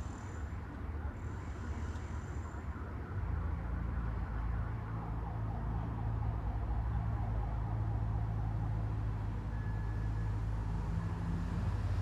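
Street traffic noise with a steady low hum, typical of vehicles idling at a red light. The hum gets louder about three seconds in and then holds steady.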